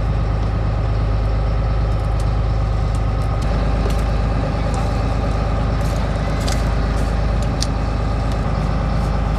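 Fishing boat's engine running steadily, a constant low hum. A few light clicks and knocks from deck gear come through it.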